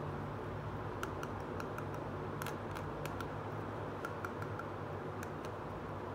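Light, sharp plastic clicks and taps, about a dozen scattered over four seconds, as a small plastic toy perfume bottle is handled, over a steady low background hum.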